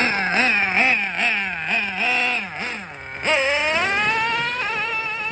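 Novarossi 2.5 nitro engine in a Losi LST RC monster truck, revved in quick blips at a standstill, then opened wide about three seconds in, its high whine climbing steadily in pitch as the truck accelerates away.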